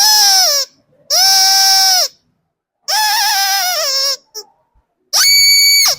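Rubber screaming chicken squeezed four times: four loud, shrill squawks, each ending in a downward slide in pitch, the last one higher.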